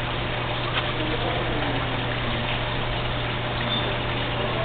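Steady rushing of running water, with a low steady hum underneath.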